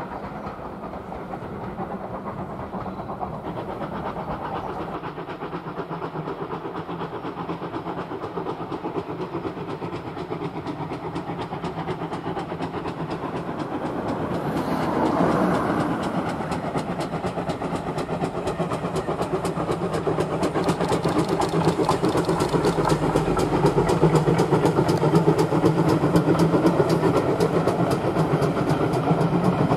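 Steam locomotive working hard while hauling a passenger train, running steadily at first, then growing louder in the second half with a fast, even rhythm of exhaust beats.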